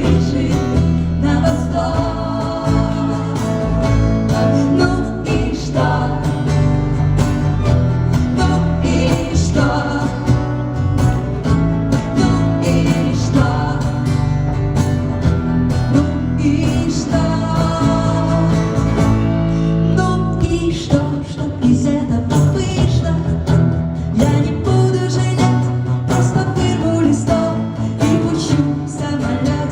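Live band performing a song: a woman singing over guitar and double bass. The low bass drops away about two-thirds of the way through.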